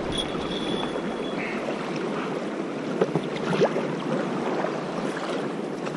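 Choppy river water rushing and splashing against an inflatable stand-up paddleboard as the paddle dips and pulls through it, with a couple of sharper splashes or knocks about three seconds in.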